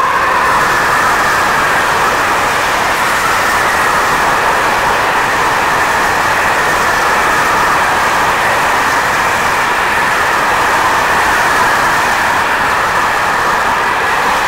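Freight train of covered grain hopper wagons rolling past at close range: a loud, steady rush of wheels on the rails.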